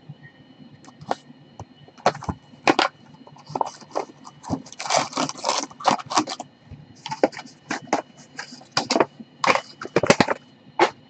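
A cardboard hockey card box and the wrapping inside it being opened by hand: irregular crackling, crinkling and sharp snaps, busiest around the middle.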